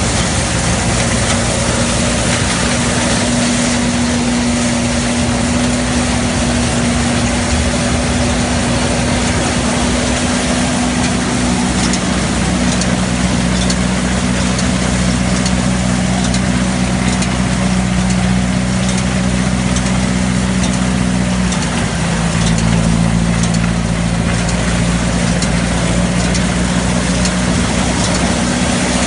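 Tractor-driven pick-up lentil thresher running while its pick-up reel gathers windrowed crop, a loud steady machine drone. The drone's hum drops in pitch about twelve seconds in, and again a little lower around twenty-two seconds.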